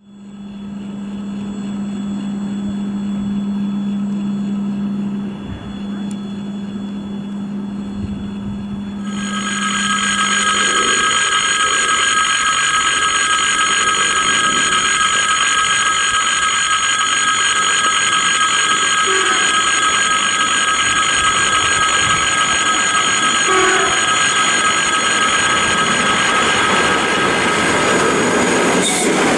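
ED4M electric multiple-unit train: a long low steady horn tone, broken briefly about five and a half seconds in, then a loud steady high whine of several tones as the train runs by.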